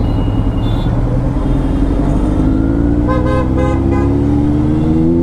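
Motorcycle engine running under the rider as it picks up speed in traffic, its pitch rising steadily through the second half. A vehicle horn gives a quick run of about four short toots about three seconds in.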